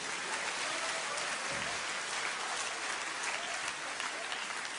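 Studio audience applauding after a joke.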